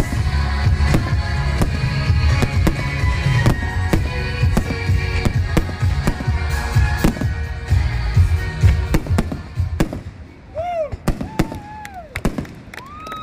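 Fireworks display: repeated bangs and crackles over music. About ten seconds in, the music drops away, leaving scattered bangs and several short whistles that rise and fall in pitch.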